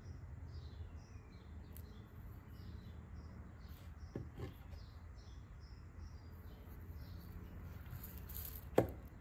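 Quiet workshop room tone: a steady low hum with scattered faint, high chirps, and one sharp click near the end.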